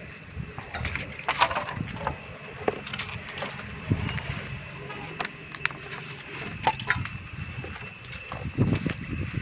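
Scattered light clicks and knocks of hands-on work while evacuated glass tubes are fitted into a solar water heater tank, over a low outdoor rumble.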